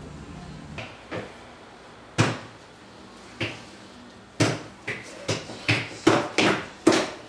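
A series of sharp thumps from performers moving on a staircase. A few come scattered at first, then a faster run of about two or three a second near the end.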